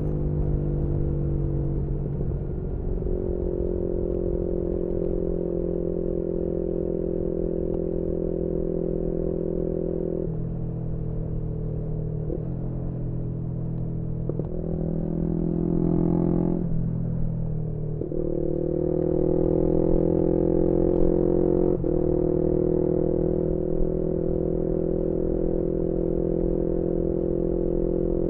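A 2018 Yamaha MT-125's single-cylinder engine, through a GPR aftermarket exhaust, running at high revs while riding. The pitch holds steady for stretches and steps up and down several times as gears change. About two-thirds of the way in, the throttle comes off briefly and then goes back on.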